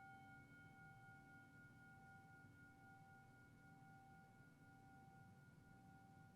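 Singing bowl ringing after a single strike, several tones sounding together and slowly dying away.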